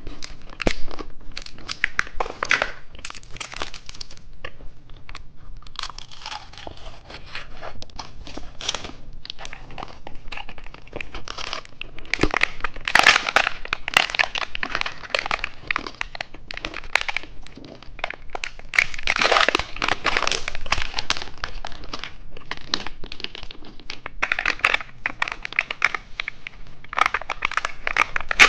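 Plastic candy packaging crinkling and rustling as wrapped novelty candies are handled and opened, in irregular bursts, loudest about halfway and again about two-thirds of the way through.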